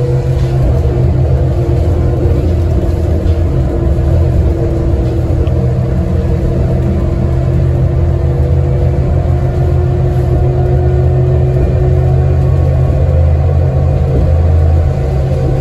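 Inside a city transit bus under way: a steady low rumble of engine and road noise, with a steady hum above it.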